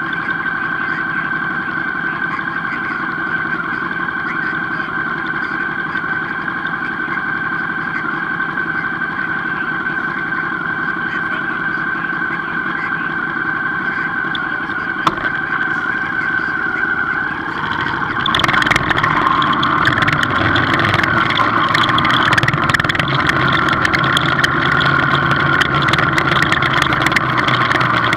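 Motorcycle engine running at low speed in slow traffic, a steady hum. About eighteen seconds in it gets louder, with wind noise on the microphone, as the bike speeds up.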